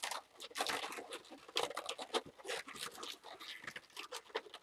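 Latex modelling balloons rubbing and squeaking against each other in the hands as they are twisted and connected, an irregular run of short crackling scrapes.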